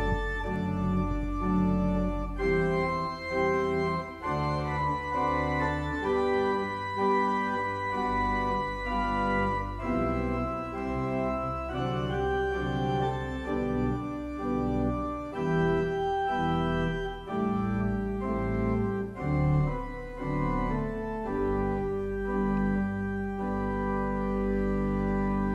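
Pipe organ playing slow, held chords over deep bass notes, the chords changing every second or two.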